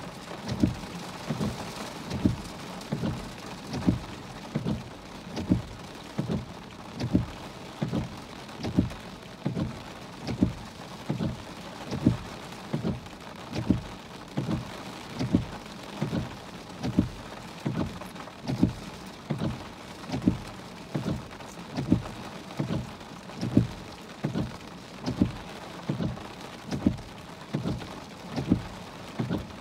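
Heavy rain on a car's windshield and body, a steady hiss, with a regular low thump a little more than once a second.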